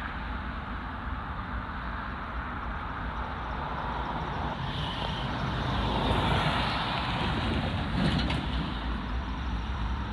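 Road traffic: cars passing on the road by the crossing, a steady rush of engine and tyre noise that swells about six to eight seconds in.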